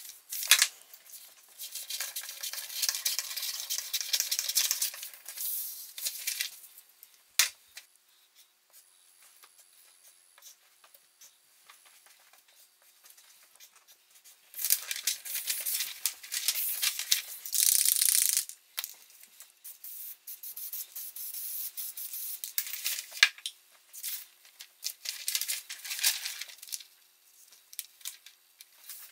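Large paper templates rustling and crinkling as they are slid, lifted and handled, in three bursts of a few seconds with quieter gaps between.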